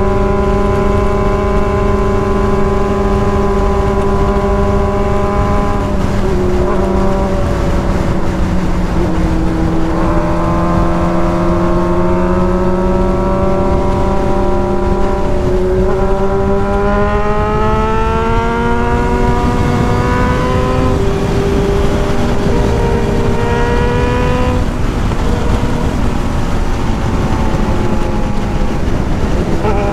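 Motorcycle engine running while riding, over a steady rush of wind and road noise. The engine note holds steady for the first several seconds, then drops and slowly climbs again as the revs change, shifting a couple more times later.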